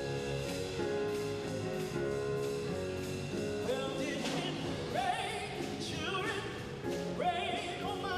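Orchestral music, with a singer coming in about four seconds in and holding notes with a wide vibrato over the orchestra.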